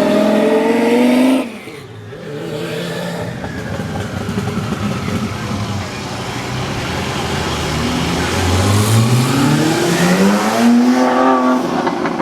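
Car engine revving up under acceleration. Its note rises and drops off sharply about a second and a half in, runs lower for a few seconds, then climbs again in a long pull from about eight seconds in before levelling off near the end.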